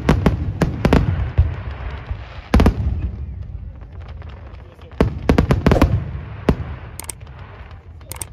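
Fireworks display: aerial shells bursting in a rapid series of bangs over a low rumble and crackle. The bangs come in a quick cluster in the first second and a half, one big bang about two and a half seconds in, another cluster around five to six seconds in, and a few single bangs near the end.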